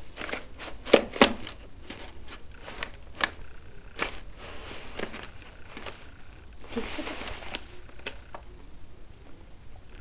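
Loose papers rustling and crinkling as a cat plays in them, in irregular snaps and scrapes. The sharpest snaps come about a second in, with a longer stretch of rustling a little past the middle.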